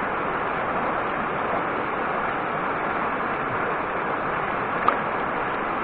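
Shallow rocky stream running, a steady rush of water, with one short click about five seconds in.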